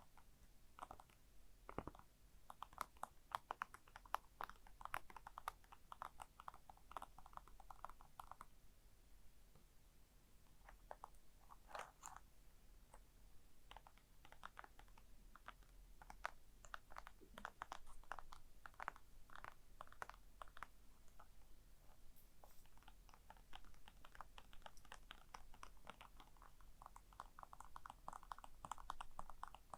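Gentle tapping and scratching on a small object, close to the microphone: quick runs of light taps, with scattered single ticks and scratches between them.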